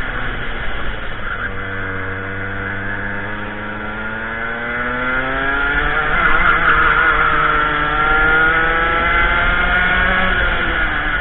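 Racing kart engine heard from the kart itself. The pitch drops as it slows for a corner, climbs steadily for several seconds as it accelerates out, then falls again near the end as the driver lifts, with a low rumble of wind on the microphone underneath.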